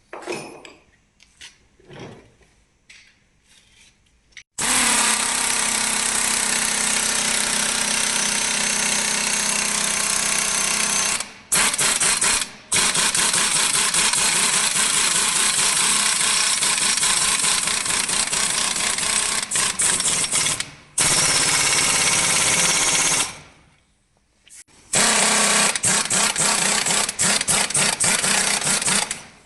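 A few light knocks, then a power tool running hard in long bursts of several seconds, stopping briefly three times and pausing for about a second and a half before running again near the end.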